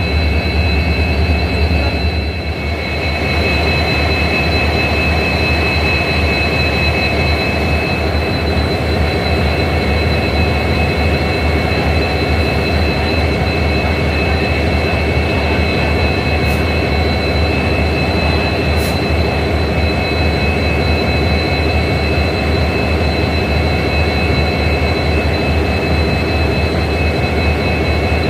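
Two EMD WDP4D diesel-electric locomotives idling together: the steady low hum of their 16-cylinder two-stroke 710 engines, with a constant high whine over it.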